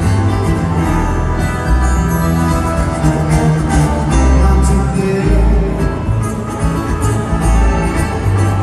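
Live band music with an acoustic guitar and an electric guitar playing over a heavy bass, amplified through an arena sound system.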